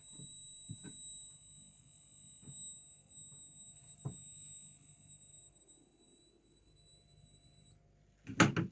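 Tube (CRT) television giving off a steady high-pitched whistle, the whine of its line-output (flyback) transformer, which cuts off suddenly near the end. A loud short knock follows just after.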